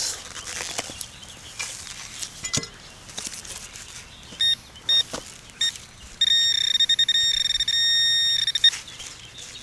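Metal detector sounding off on a buried target: three short beeps, then a high, steady electronic tone lasting about two and a half seconds that stutters in quick pulses at its start and end.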